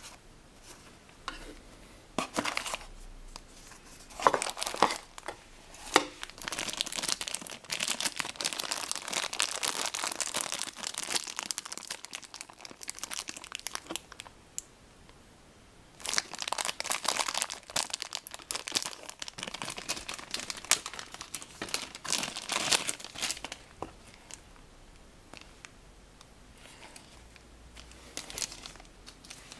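Clear plastic bag around a cable crinkling as it is handled and unwrapped, in long stretches of crackling with a short lull about halfway through and scattered crackles near the end. A few sharper clicks and rustles come near the start.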